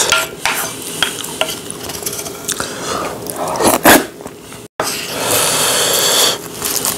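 Wooden spoon scraping and stirring rice with spicy sauce in a ceramic bowl, then a loud slurp as a spoonful is eaten about four seconds in. After a short break, a dry crackle of roasted laver (gim) being handled as rice is spooned onto the sheet.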